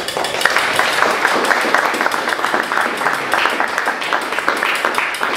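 Audience applauding, many hands clapping.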